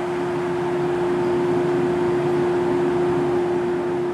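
JR 115 series electric train standing at a platform, its onboard equipment giving a steady hum: one constant tone over a hiss.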